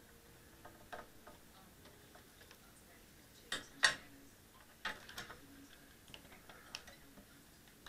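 Scattered light clicks and ticks of a small screwdriver turning out the tiny screw that holds the plastic motor guard on a Dromida Ominus quadcopter, with a few sharper clicks about halfway through.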